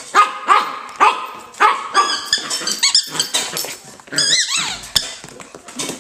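Young fox terrier puppy barking and growling in play, in short yaps about every half second, some of them high squeals that rise and fall in pitch.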